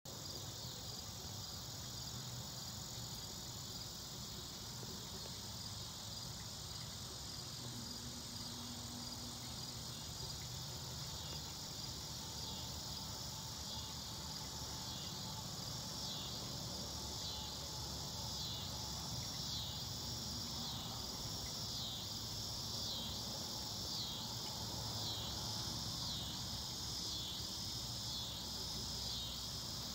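Insects chirping in a steady high trill, with a pulsing call that repeats about once a second and grows stronger from about halfway through.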